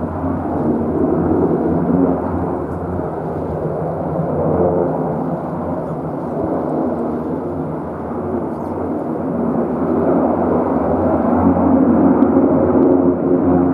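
Jet airliner engines running: a steady, loud rumble that swells and is loudest near the end, with gusty wind buffeting the microphone.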